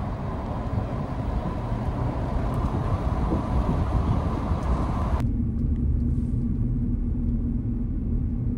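Haval Raptor SUV driving on the road: a steady rumble of tyre and road noise. About five seconds in the sound changes abruptly to a duller rumble with a steady low hum.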